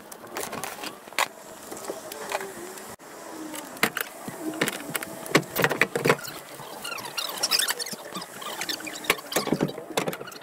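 Irregular clicks, knocks and rattles of a van's rear bench seat being worked loose and handled, its metal frame and brackets knocking against the floor.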